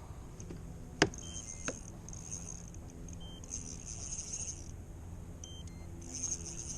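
Light clicking and rattling of fishing gear on a kayak while a hooked trout is played, with a sharp knock about a second in and a smaller one just after.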